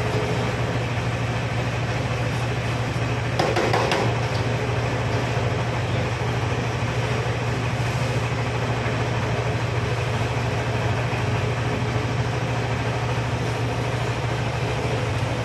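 Electric-motor-driven 200 kg horizontal feed mixer running with a steady hum while mixed duck feed pours out of its discharge chute into a sack. There is a brief louder noise about three and a half seconds in.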